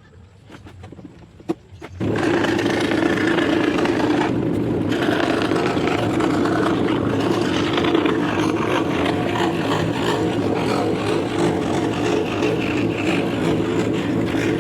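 Electric scroll saw switched on about two seconds in, its motor and reciprocating blade then running steadily and loudly.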